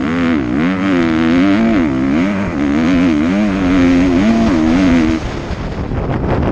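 Motocross bike engine heard from on board, its pitch rising and falling repeatedly as the rider works the throttle along the track. About five seconds in, the engine note drops away as the throttle is closed.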